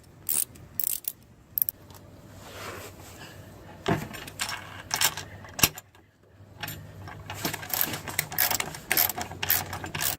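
Socket ratchet fitted with a 10 mm socket clicking in short irregular bursts as bolts are tightened.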